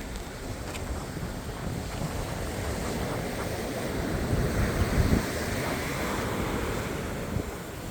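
Sea waves breaking and washing up on the shore, with a louder wave crashing about five seconds in. Wind is buffeting the microphone, adding a low rumble.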